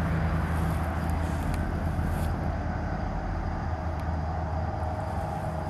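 Steady background road noise: a constant low hum and rumble from traffic.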